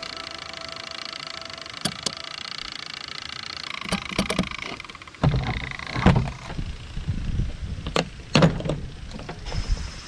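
Music fading out over the first few seconds, then a run of irregular knocks and clatters.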